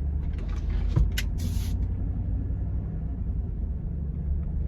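A car driving, heard from inside the cabin as a steady low rumble, with a few sharp clicks and a short hiss about a second in.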